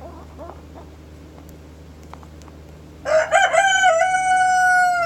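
A rooster crowing once, loud, starting about three seconds in with a few quick stepped notes and ending on a long held note. A few faint, soft chicken calls come before it.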